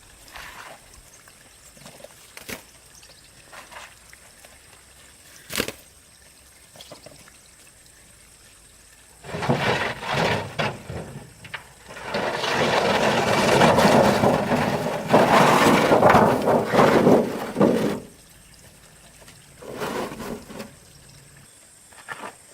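Water pouring and splashing in two spells: a shorter one about nine seconds in, then a longer, louder one that stops sharply near eighteen seconds. Scattered light knocks come before and after.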